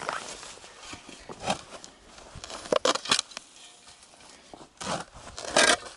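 A shovel cutting into grassy turf and soil: a handful of short scraping, tearing strokes spread over a few seconds.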